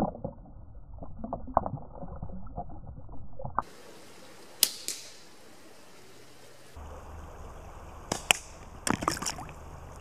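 Deadwood natural-fork slingshot shots: several sharp cracks at irregular intervals as the bands release and the shot strikes, with a quick cluster near the end.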